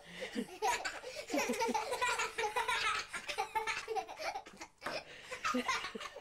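People laughing, with short pauses.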